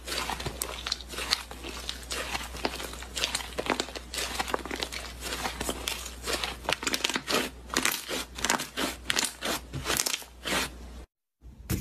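Slime being squeezed and pressed by hand, giving a dense, irregular run of crunchy crackles and pops, over a low steady hum. It cuts out briefly near the end.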